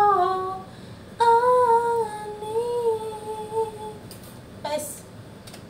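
A person humming a slow, wavering tune in long held phrases. The last phrase fades out about four seconds in, and a short breathy sound follows.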